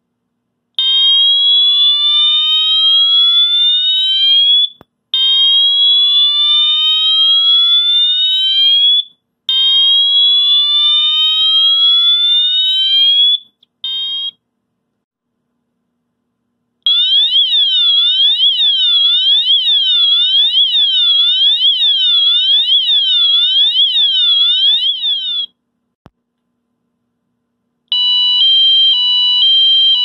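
Wheelock MT-24-LSM electronic fire alarm horn sounding its selectable tones. First comes a slow whoop: three rising sweeps of about four seconds each. After a short pause it plays a siren tone that rises and falls about twice a second, and near the end a tone alternating between two pitches.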